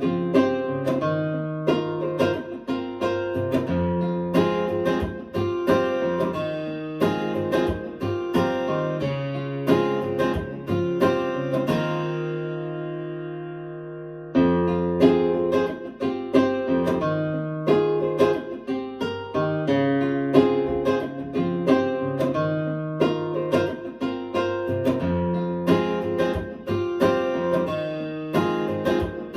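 Instrumental acoustic guitar music played through a pair of KEF LSX wireless speakers: a run of plucked notes, one chord left to ring and fade about halfway through, then the picking starts again.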